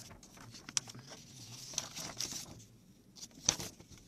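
Printed paper script sheets being handled and flipped through close to a studio microphone: several quick rustles and crinkles, the loudest about three and a half seconds in.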